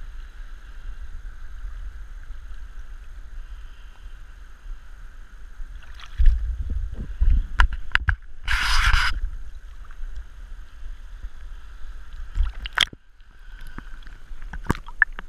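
Water sloshing and rumbling against a GoPro housing worn under a diver's neoprene hood at the surface, with a few knocks. About eight and a half seconds in, a short burst of hissing air is heard. Near the end the camera goes under and the sound turns muffled, with scattered clicks.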